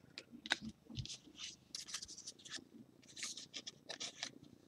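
A stack of trading cards being flipped through by hand, the cards sliding and rubbing against one another in a faint run of short, scratchy swishes, several a second.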